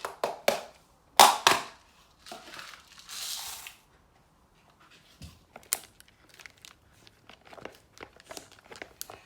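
A plastic packet of beads crinkling and rustling as the beads are tipped into slime, with a few sharp clicks early on and many small light clicks in the second half.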